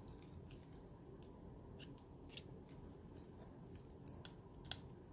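Faint, irregular small clicks and ticks of a pick tool's tip poking die-cut cardstock pieces out of a thin metal die, with one sharper click near the end.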